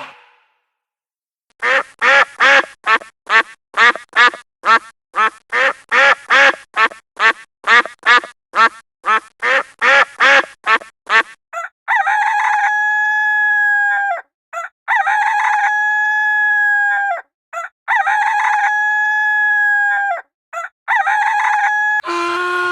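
Chickens: a run of short, evenly repeated clucks, about two or three a second, followed by a rooster crowing four times in long, steady calls.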